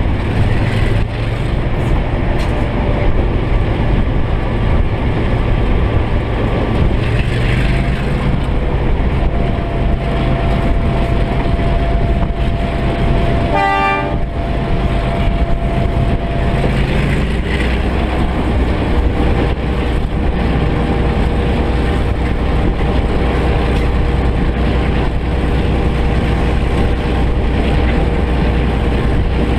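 NZR Da class diesel-electric locomotive's EMD 567 two-stroke diesel engine running steadily under power, with a short horn toot about halfway through.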